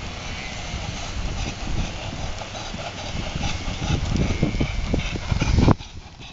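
Hoofbeats of a ridden horse on grass in a quick, short-stepping gait: a rapid run of soft thuds over a steady hiss, growing louder, then dropping off sharply near the end.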